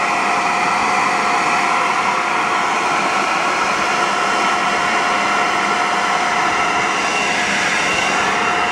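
Electric air blower running steadily with a constant high whine over a loud rush of air.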